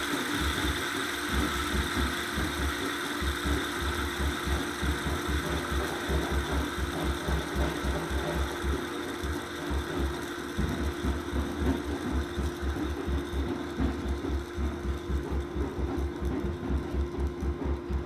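Homemade fidget-spinner pulse motor, a hall-effect switched coil driving the magnet-faced spinner, running with a fast, even low pulsing of about four beats a second over a steady hum. The higher hiss fades over the second half as the spinner slows.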